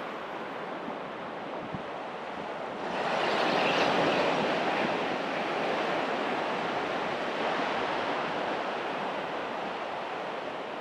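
Small waves washing up a sandy shore. One swells in about three seconds in and slowly fades.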